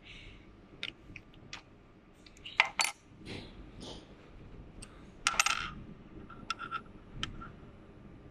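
Scattered sharp metallic clinks and taps from a small laser-welded steel tube tee being handled and set against a perforated steel worktable. The loudest clinks come about two and a half seconds and five seconds in.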